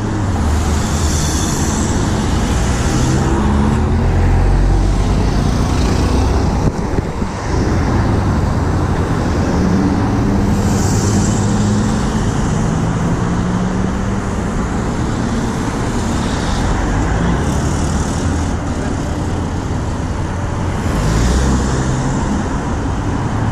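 Busy multi-lane road traffic passing close by: car and van engines and tyre noise, swelling and fading as each vehicle goes past.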